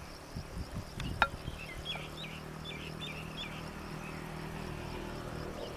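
A wooden ladle scrapes and knocks against clay pots as a thick cooked mash is dished out, with one sharp knock about a second in. A small bird chirps several times in the background.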